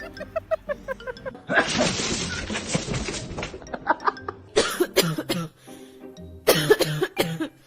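A person coughing in short, sharp bursts, in two clusters in the second half, over light background music. A longer rushing noise starts about a second and a half in.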